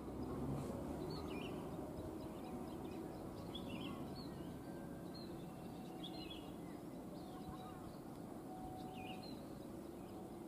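Birds chirping, short calls about every second or two, over a steady low rumble.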